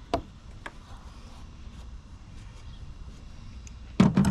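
Hand tools being handled while working on an oil filter housing: a couple of faint clicks, then a short loud clatter near the end.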